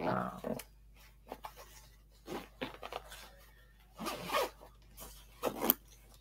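Zipper on a backpack pouch being pulled in a series of short strokes, with rustling as the bag is handled.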